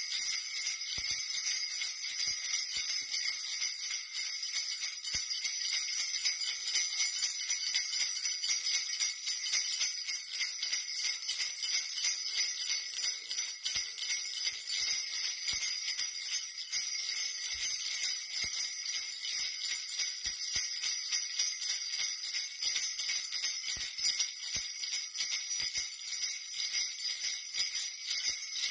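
A strap of small metal jingle bells shaken without pause: a dense, steady, high jingling.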